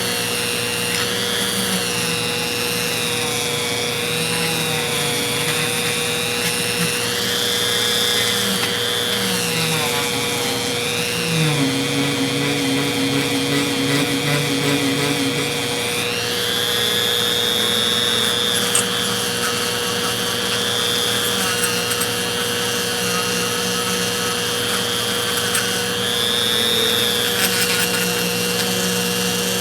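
A small power tool with a little wheel running continuously against metal ratchet parts. Its pitch dips and recovers again and again as the wheel is pressed in and eased off.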